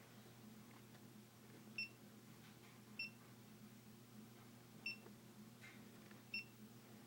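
GoPro Hero2 camera beeping as its buttons are pressed: four short, high beeps at uneven gaps of one to two seconds. A faint steady low hum lies beneath.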